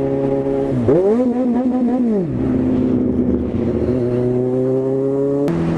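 Kawasaki Z1000 inline-four motorcycle engine running while riding, picked up by a helmet microphone. It revs quickly up and back down about a second in, runs steadily with the revs slowly climbing, and its note changes abruptly near the end.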